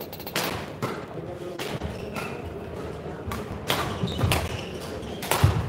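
Badminton rally: a string of sharp hits of rackets on the shuttlecock mixed with players' feet thudding on the court, with a heavier thud near the end.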